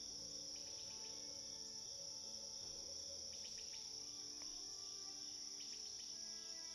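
Steady high-pitched chorus of crickets with a few short bird chirps, over soft background music with held notes.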